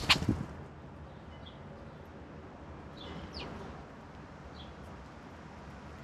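Wild songbirds calling now and then: a few short chirps and one falling whistled note, over a steady low background hum. A brief loud clatter comes right at the start.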